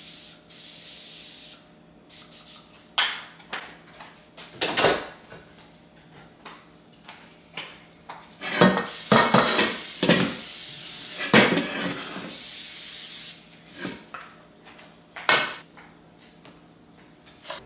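Aerosol cooking spray hissing into a pot in three bursts: a short one at the start, a longer one of about three seconds around eight seconds in, and a brief one around twelve seconds. Sharp knocks and clanks of the pot are heard between the bursts.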